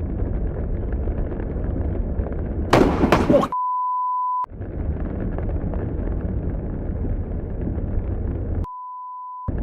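A steady rushing noise, then about three seconds in the sharp, very loud crack of a close lightning strike, lasting under a second. Straight after it a steady high censor bleep replaces the sound for about a second, and a second, quieter bleep comes near the end.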